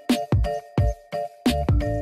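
Background music with a steady, even beat.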